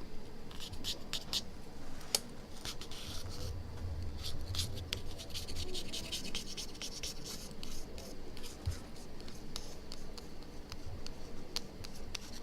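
Scraping and rubbing at old adhesive residue on an iPhone 6 Plus screen: irregular short scratchy strokes with small clicks.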